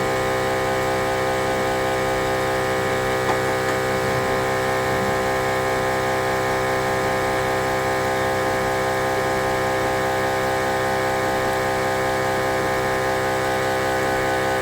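OM518 Plus LCD separator machine running steadily while its cutting wire separates a cracked screen's glass from the LCD. It makes an even motor hum made of many steady tones, with no change in pitch or level.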